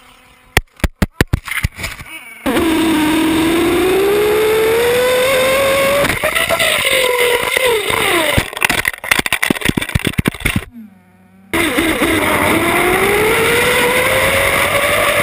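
Kyosho Inferno RC buggy's small two-stroke engine, heard from a camera mounted on the car just behind it, revving up and down as the car drives. A rattle of sharp clicks and knocks comes near the start and again in the middle as the car bounces and tumbles. The sound cuts out briefly about eleven seconds in, then the engine revs on.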